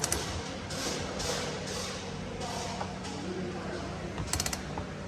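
Socket ratchet on a 22 mm socket clicking in quick runs, at the start and again about four seconds in, with scraping between, as the engine's crankshaft is turned over by hand to bring the flywheel teeth into view.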